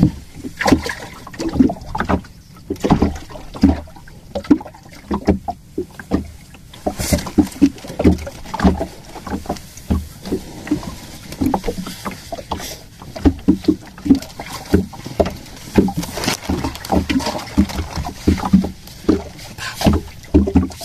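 Water slapping and knocking against the hull of a small fishing boat, with irregular splashes and knocks several times a second.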